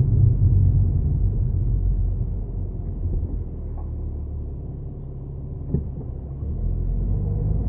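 Low, steady rumble of a defective wheel bearing on an Audi A6 4G TDI quattro while the car is moving. It eases off in the middle and builds again near the end, with one brief knock just before it rises.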